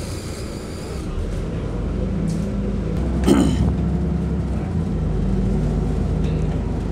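Engine and road noise heard inside a moving city bus: a steady low drone that grows louder after about a second, with one brief sharp sound about three seconds in.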